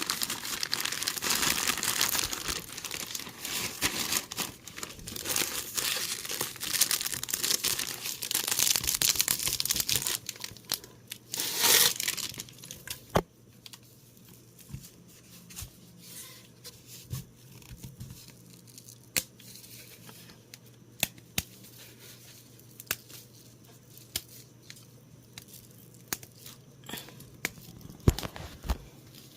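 Packaging being torn open and crinkled during an unboxing: steady tearing and rustling for about twelve seconds, loudest just before it stops, then quieter handling with scattered small clicks and crinkles.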